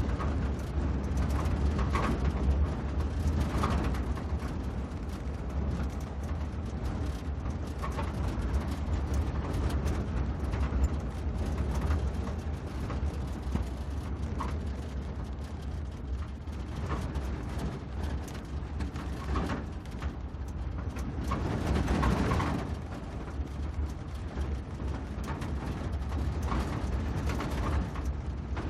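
Jeep on a ride: a steady low engine and drive rumble with frequent rattles and knocks from the vehicle, swelling louder about 22 seconds in.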